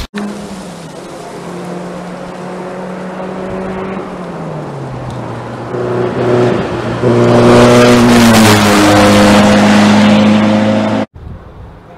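Rally car engine on a gravel stage. It holds a steady note, falls in pitch about four seconds in, then comes much closer and louder from about seven seconds with gravel and tyre noise. An abrupt cut shortly before the end leaves a fainter engine note.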